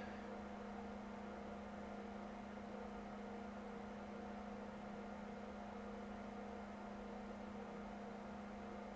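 Faint, steady low hum with no other events: electrical or machine room tone.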